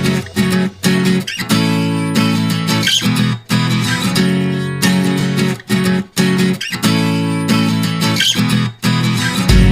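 Background music: strummed guitar chords with a steady rhythm, stopping briefly between phrases.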